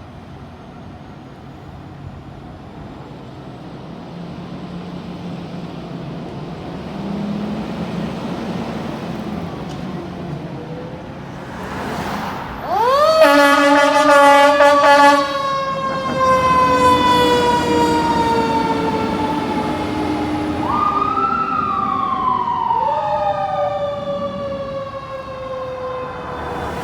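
Fire engine pulling out with its engine noise building, then about 13 s in a blast of its air horn lasting about two seconds. Over the horn, its Federal Q mechanical siren winds up fast and coasts down in a long falling whine. The Q is wound up again twice near the end, each time sliding slowly back down.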